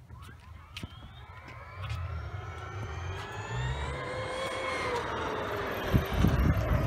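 Traxxas X-Maxx electric RC monster truck making a speed run, its stock brushless motor and drivetrain whining. The whine climbs in pitch and grows louder as it accelerates, then levels off and drops a little as it passes. A loud low rumble comes in near the end.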